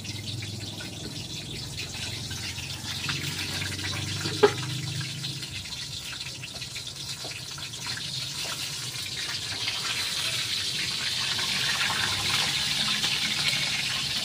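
Pork leg (pata) sizzling as it deep-fries in hot oil, a steady hiss that grows louder toward the end, with one sharp knock about four seconds in.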